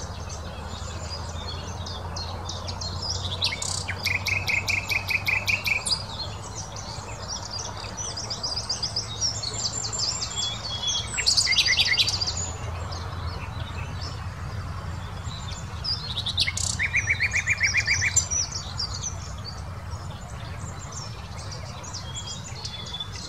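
Common nightingale singing: separate phrases with pauses between them, several a fast run of repeated notes, with the loudest phrase about halfway through.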